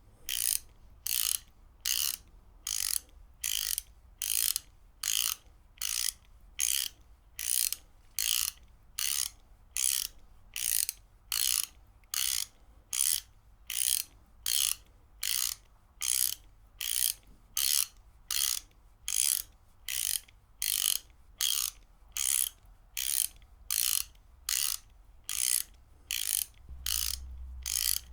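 Ratchet wrench being worked back and forth, its pawl clicking over the gear teeth in short, even bursts of about one and a half strokes a second.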